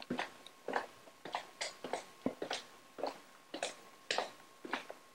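Footsteps walking along a wooden parquet hallway floor: short sharp steps, about two a second, at an even walking pace.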